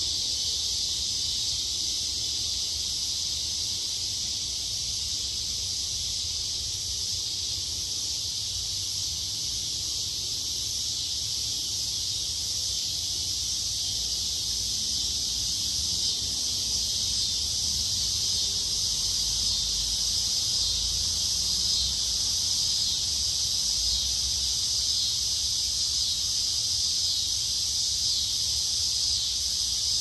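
Loud chorus of summer insects, a steady high-pitched buzzing drone that holds unbroken throughout, over a faint low rumble.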